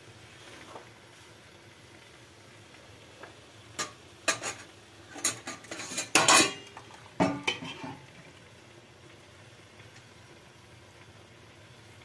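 Metal ladle and spoon clinking and knocking against a pot and plate while hot syrup is ladled, a cluster of sharp clinks between about four and eight seconds in, over a faint steady hiss.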